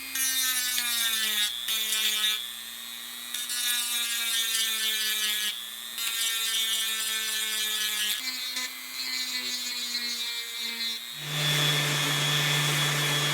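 Dremel rotary tool running, stripping paint off a motorcycle hand guard: a high motor whine that sags in pitch as it bites and recovers between passes, with a few short pauses. Near the end it settles into a lower, steadier and louder tone.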